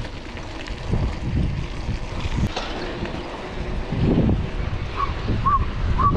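Wind buffeting the microphone while riding a bicycle, an uneven low rumble that rises and falls in gusts. Near the end there are three short chirps about half a second apart.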